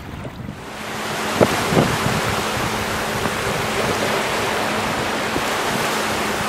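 Steady rushing noise of wind and water that builds up during the first second, with two short knocks about a second and a half in.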